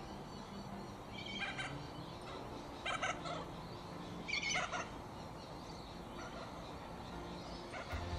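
A bird calling in three short, harsh bursts over a faint low hum.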